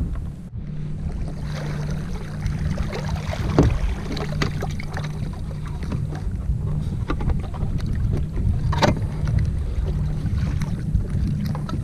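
Wind buffeting the microphone on a kayak at sea, with light rain ticking and small knocks from gear being handled. Two sharper clicks stand out, about three and a half seconds in and again about nine seconds in.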